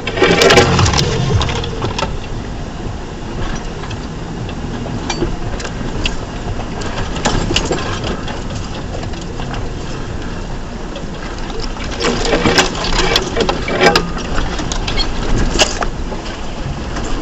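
2004 Ford Ranger's 4.0L V6 running as the truck crawls over a rough off-road trail, with a steady rumble and many knocks and clatters from the truck jolting over rocks and ruts. The knocks come thickest about half a second in and again from about twelve to sixteen seconds in.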